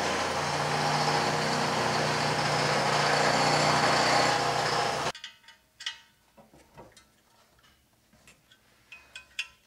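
Steady machine noise, a wide whirring hum with a low drone under it, cutting off abruptly about five seconds in. After that come only faint, scattered clicks and taps of hand work on metal.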